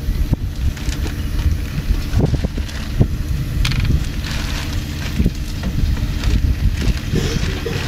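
A steady low rumble, with soft handling sounds as marinated chicken pieces are laid by hand on a wire grill grate.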